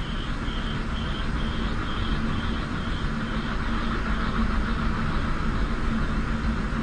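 Large wind turbine spinning fast in strong wind: a steady rushing noise with a low rumble, a low hum, and a faint high note pulsing about twice a second.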